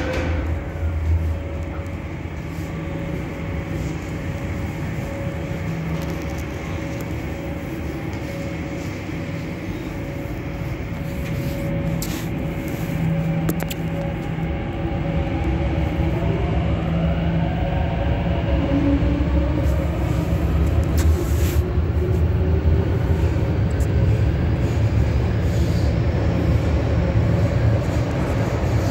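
CNR Changchun-built MTR C-Train electric multiple unit pulling out of an underground station. Its low rumble runs throughout, and about halfway through the traction motors' whine rises in pitch as it accelerates away. The running noise grows louder toward the end.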